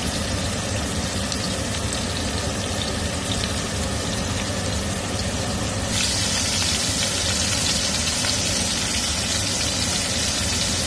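Floured beef osso buco slices searing in hot oil in a cast iron skillet: a steady sizzle with light crackling over a low hum. The sizzle grows brighter and a little louder about six seconds in.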